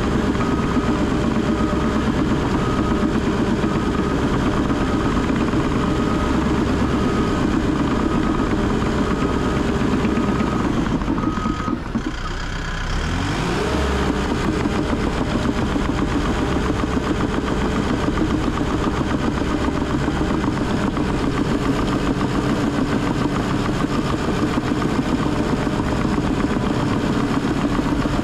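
Cat D3 bulldozer's diesel engine running steadily, with its reverse alarm beeping at an even pace until about halfway through. The engine then briefly falls off and its pitch rises as it revs back up.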